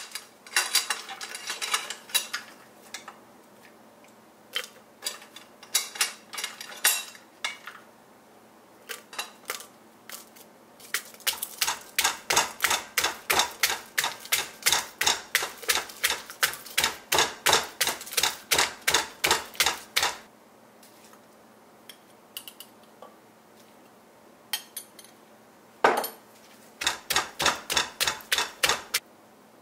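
Wooden pestle pounding chili peppers and garlic in a clay mortar: a long run of even strokes, about three a second, then a short second run near the end. Before the pounding come scattered clicks and knocks.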